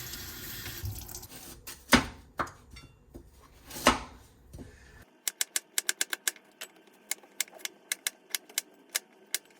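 A brief hiss and two sharp knocks, then a run of quick, irregular clicks through the second half, like typing on a keyboard.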